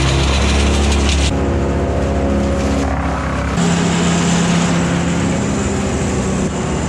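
Engine running steadily at a constant speed. Its pitch and tone change abruptly about a second in and again past halfway.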